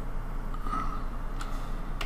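A few sharp clicks of a computer keyboard and mouse over a steady low background hum, with a brief higher-pitched sound a little under halfway through.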